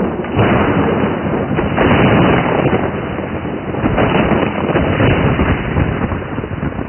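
Thunderstorm sound effect: rolling thunder over a steady heavy downpour, the thunder surging again about half a second, two seconds and four seconds in, then easing off near the end.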